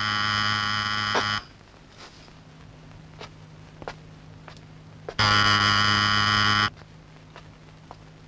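Electric doorbell buzzer ringing twice. A steady buzz cuts off about a second in, and a second buzz of about a second and a half starts about five seconds in. A few faint footfalls come in between.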